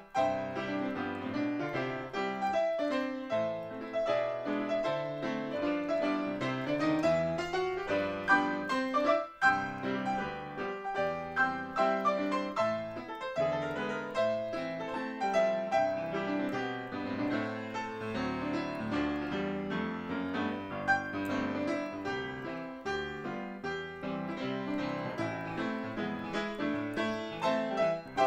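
Solo grand piano playing a hymn arrangement, with a brief pause about nine seconds in.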